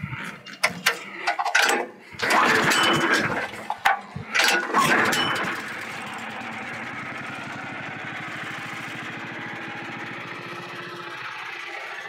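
Small gasoline engine of a Woodland Mills HM130 portable sawmill being started: it fires unevenly in loud, irregular bursts for about five seconds, then settles into a steady, even run.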